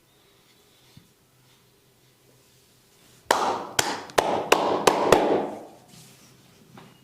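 A massage barber's hands striking the body in a quick series of about six sharp slaps, starting about three seconds in and lasting about two seconds.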